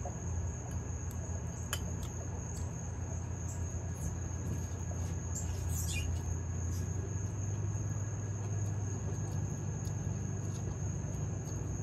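Insects trilling steadily at one high pitch, over a steady low hum, with faint clicks of a fork against a bowl. A short falling chirp comes about six seconds in.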